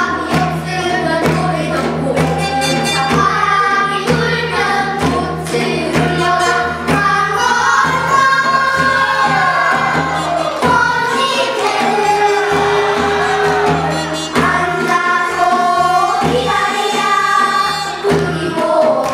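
A children's chorus singing a Korean gugak folk-style song together, over instrumental accompaniment with a steady percussion beat.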